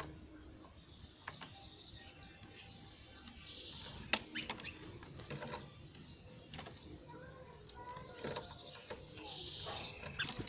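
Small birds chirping in short, high, scattered calls, loudest about two seconds in and again near seven seconds, with a few sharp clicks between them.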